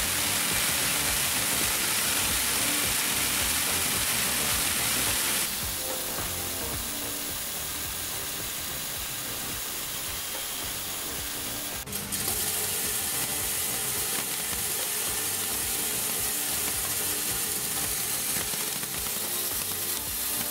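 Sōvda Pearl Mini coffee color sorter running on green coffee beans: a dense, steady rattle of beans streaming through the machine and pouring into plastic bins. The sound drops abruptly about five seconds in and shifts again about twelve seconds in.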